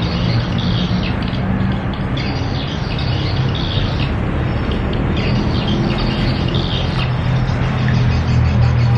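Small birds chirping and twittering over a steady low hum.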